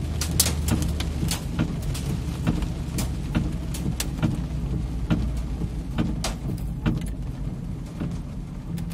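Inside a moving van's cabin: steady engine and road rumble, with scattered sharp ticks of raindrops striking the windshield and roof. The ticks are irregular, fairly dense at first and thinning out later.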